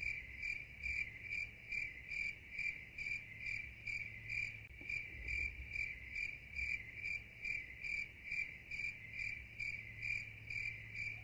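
Cricket chirping in an even, unbroken rhythm of about two and a half chirps a second, used as the 'awkward silence' sound effect. It starts and stops abruptly with the edit.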